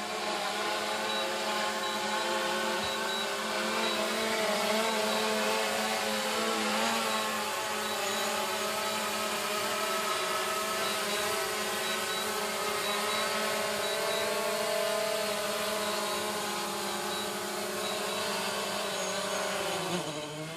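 DJI Mavic Pro quadcopter's motors and propellers buzzing steadily in flight. The pitch wavers as it manoeuvres, then drops near the end as it sets down on its landing pad.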